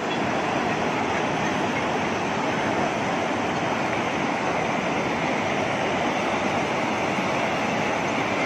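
Fast-flowing muddy floodwater rushing through a street, a steady, unbroken wash of noise.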